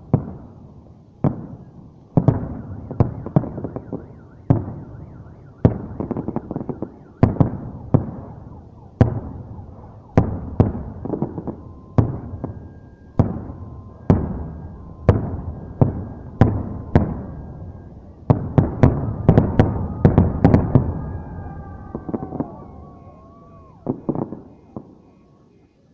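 Fireworks display: aerial shells bursting with loud bangs about once a second, each trailing off in echo, building to a rapid barrage about two-thirds of the way through. Near the end the bursts thin out and a car alarm wails in the background.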